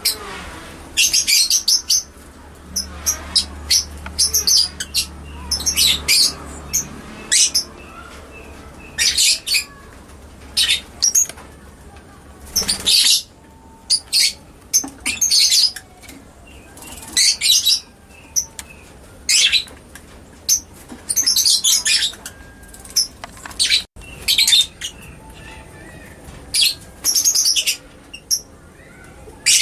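Lovebird calling in a long run of short, shrill chirping bursts, bunched in quick clusters with brief pauses between them.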